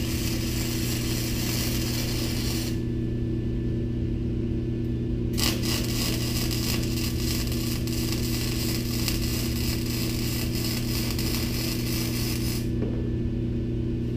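Electric arc welding of steel angle-iron brackets: a steady crackling arc that breaks off about three seconds in, strikes again a couple of seconds later and runs for about seven seconds before stopping, with a steady low hum underneath.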